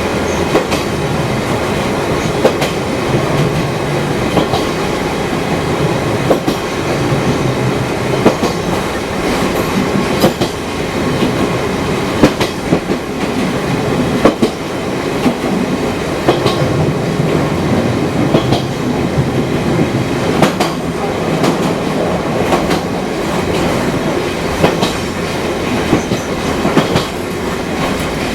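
Fukui Railway 200-series railcar running along the line, heard from inside the car: a steady running rumble with a low hum, and frequent sharp clicks and knocks from the wheels over rail joints.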